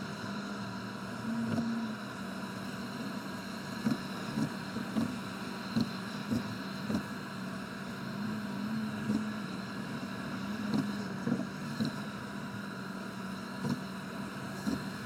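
Car interior driving noise on an expressway, sped up sixfold: a steady engine and road drone with frequent short thumps about once a second.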